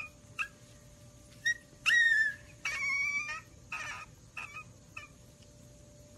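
Newborn husky puppies squeaking and whimpering: a string of short, high, thin cries, the loudest about two seconds in with a falling pitch, dying away after about five seconds.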